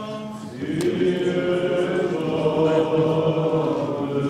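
Choir chanting an Orthodox liturgical response, several voices singing together in long held notes that start about half a second in.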